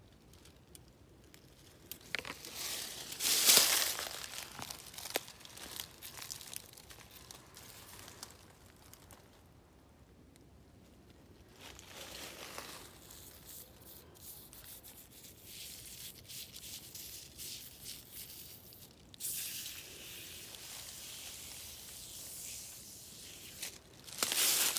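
Dry leaves and brush rustling and crunching underfoot and against the body while walking through woods. There are irregular louder brushing bursts a few seconds in and again near the end.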